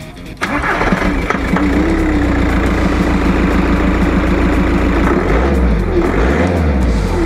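Volkswagen Jetta TDI turbodiesel engine, coming in suddenly and running steadily. Its low pitch swings up and down in the last couple of seconds.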